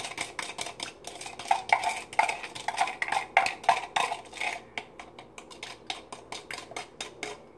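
A stirring spoon clinking against a cup and the rim of a glass mason jar in an irregular run of sharp taps, some of them ringing briefly, as juice is scraped out of the cup into the jar.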